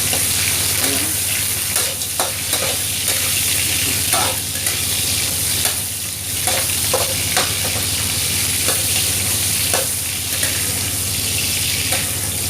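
Garlic and shallots sizzling in hot oil in a pan, stirred with a spatula that clicks and scrapes against the pan now and then.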